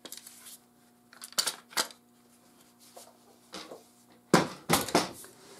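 Metal clicks and clanks of a Ruger Mini 30 rifle being taken apart by hand, its barreled action coming out of a folding stock. There are a few separate knocks, with the loudest cluster near the end.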